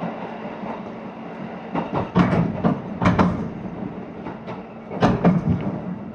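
Inside a moving train carriage: steady running noise with a low hum, and clusters of sharp wheel clicks on the rails, around two to three seconds in and again about five seconds in, as the wheelsets pass over rail joints.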